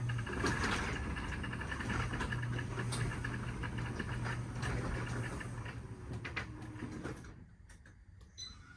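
A garage door mechanism running with a steady motor hum and rattling, stopping about seven seconds in.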